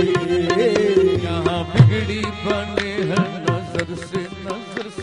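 Qawwali music: harmonium holding a sustained melodic line over a steady tabla beat.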